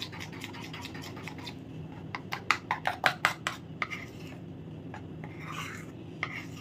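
Metal spoon stirring melted white compound chocolate in a plastic bowl, scraping and clicking against its sides. There is a quick run of sharper clicks about two seconds in.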